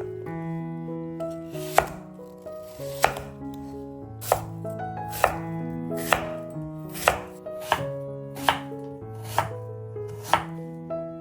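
Knife chopping food on a cutting board: about ten sharp cuts, roughly a second apart, over soft piano music.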